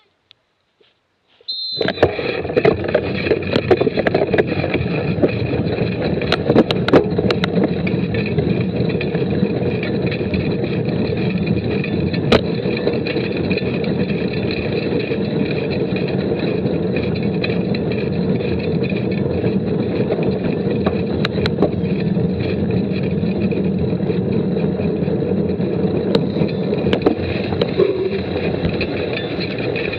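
Rushing wind and tyre noise picked up by a camera mounted on a racing mountain bike riding fast over a wet road, with scattered clicks and knocks from bumps. It starts suddenly about two seconds in, after near silence.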